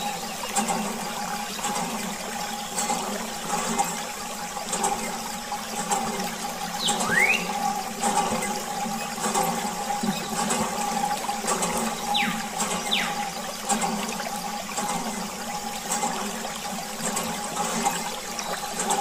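Water running steadily out of a clear plastic tube and splashing into a small plastic toy bucket, with a steady hum underneath and a few short sliding chirps.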